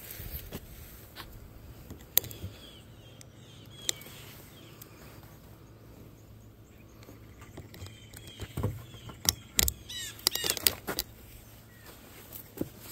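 Scattered clicks and knocks, with short high chirps a few seconds in and again about ten seconds in; no engine running.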